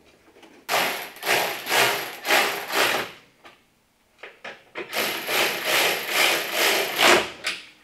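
Two bouts of rhythmic scraping, each about two seconds long with a couple of strokes a second, the second starting about two seconds after the first stops.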